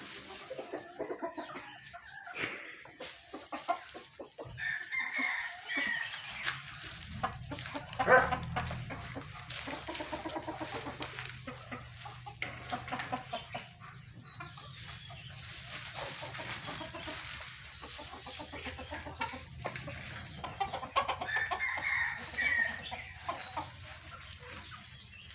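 Chickens clucking, with roosters crowing now and then.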